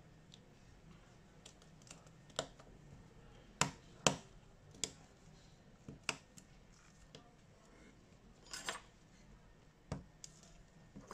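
Irregular small clicks and taps of hand tools and phone parts being handled during a smartphone repair, with a short scraping rustle past the middle.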